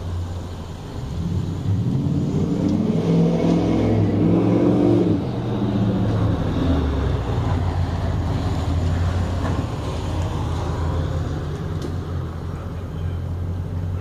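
Pickup truck engine close by, revving up with a rising pitch over the first few seconds, dropping back about five seconds in, then running low and steady.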